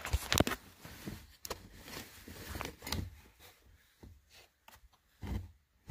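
Scattered light clicks, knocks and rubs of handling, with a near-silent stretch about four to five seconds in.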